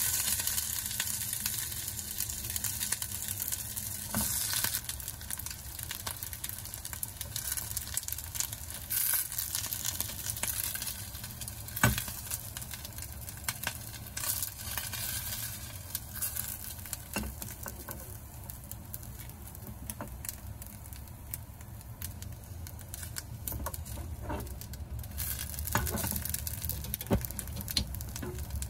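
Rice balls sizzling as they pan-fry in a nonstick pan, with light clicks and scrapes from a spatula turning them. There is one sharper knock about twelve seconds in.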